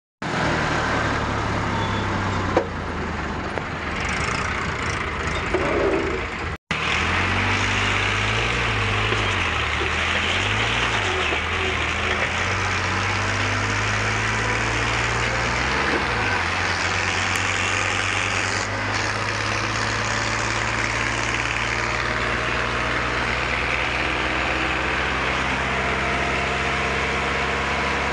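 Eicher 5660 tractor engine running at road speed, heard from the seat with wind and road noise. Its note dips and recovers a few times in the first half. The sound cuts out for an instant about six and a half seconds in.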